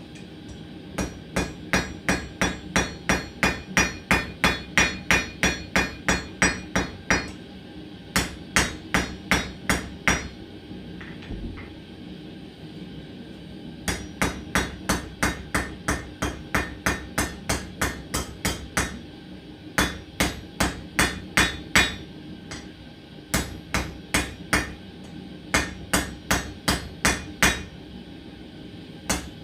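Hand hammer striking hot steel on an anvil, in runs of quick ringing blows about two to three a second with short pauses between runs: drawing out the reins of a pair of forged tongs.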